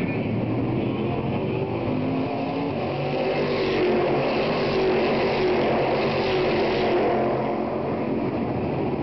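Stock Car Brasil race cars' V8 engines passing at racing speed one after another. The engine sound is loud and continuous, its pitch bending as the cars accelerate, and it is loudest around the middle.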